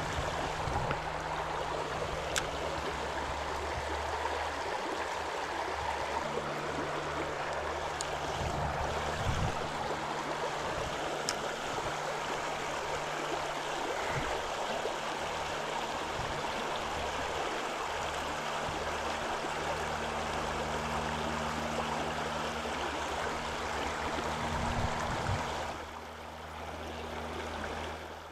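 Shallow river water rushing steadily over a rocky riffle, dropping a little in level near the end.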